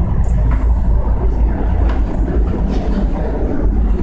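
SEPTA Market–Frankford Line subway car running on its rails, heard from inside the car: a steady low rumble of wheels and car body with light clatter.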